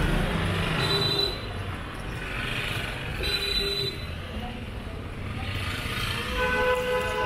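Road traffic: motor vehicle engines running and passing, then a vehicle horn held from about a second before the end.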